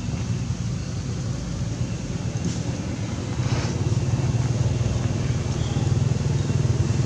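A steady low rumble that gets a little louder about three and a half seconds in.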